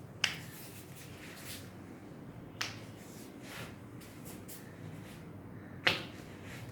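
Three sharp joint cracks during a chiropractic adjustment, a few seconds apart, the middle one softer.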